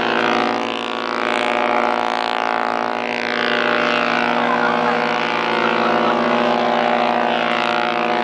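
Queen Mary 2's ship horn sounding one long, steady blast, a deep chord of several tones, that cuts off near the end.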